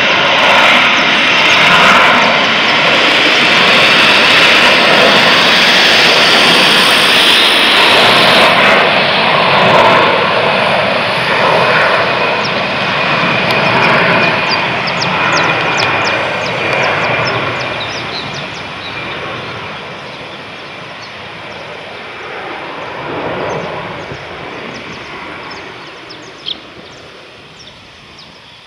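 Jet engines of an Airbus A320-family airliner at high power as it runs down the runway: a loud, steady noise that fades steadily through the second half as the jet draws away. A single sharp click sounds near the end.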